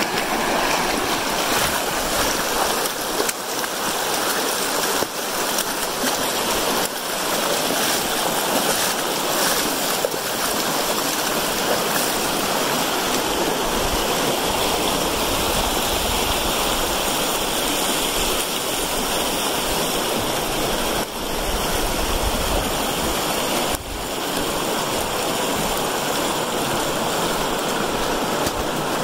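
Steady rushing of the shallow North Fork of the Virgin River running over rocks and cobbles, with a few brief knocks.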